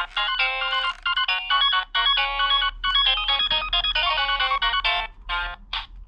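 Electronic Pokémon Pokédex toy playing a beeping melody from its small speaker: a quick run of synthesized notes with short breaks between phrases. It has just been switched on with new batteries and is working.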